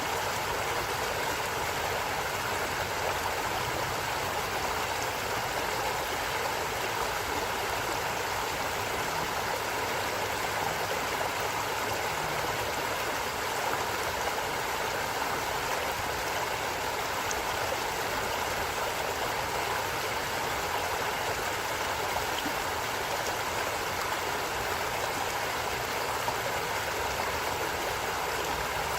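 A stream running steadily, an even rush of flowing water with no change or break.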